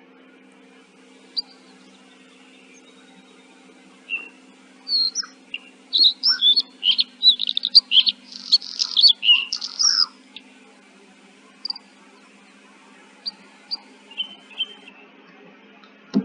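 Birds chirping: a few scattered chirps, then a dense run of quick, loud chirps for several seconds, thinning back to occasional chirps. A faint steady low hum runs underneath.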